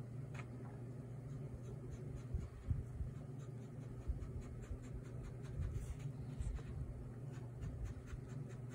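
Cartridge ink pen scratching across paper in short, irregular strokes as ink lines and shading are drawn, over a faint steady low hum.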